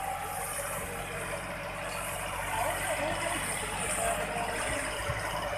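Massey Ferguson 9500 tractor's diesel engine running steadily under load while pulling a disc harrow through the soil, a constant drone.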